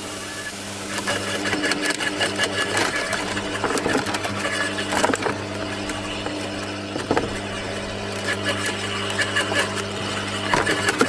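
Bosch Turbine Cut electric garden shredder running with a steady motor hum, its cutting drum giving irregular snaps and cracks as it slowly draws in and chews a thin branch that had stuck in the hopper.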